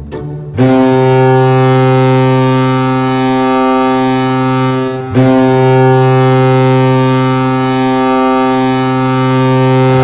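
Colorado Avalanche arena goal horn sounding in two long blasts on one steady low pitch. The first starts about half a second in and breaks off at about five seconds, and the second follows at once.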